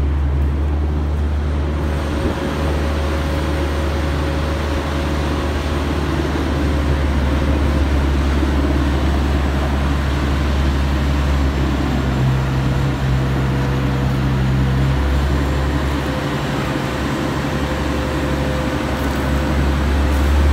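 Diesel power pack of a self-propelled modular transporter running steadily under load as it carries a 500-ton barge: a continuous low engine hum with a faint steady higher tone above it.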